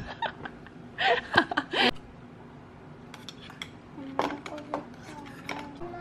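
Metal spoon clinking and scraping against a stainless-steel bowl in several short runs of quick clinks.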